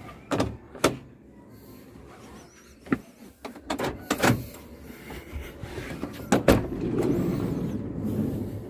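Sharp clicks and knocks of a Suzuki Every van's door and latches being opened and handled, several strokes spread out with the loudest about six and a half seconds in, followed by a steady low rushing noise.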